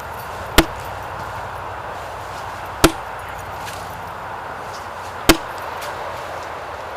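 Three single chopping blows of an axe into wood, evenly spaced about two and a half seconds apart, over a steady background hiss.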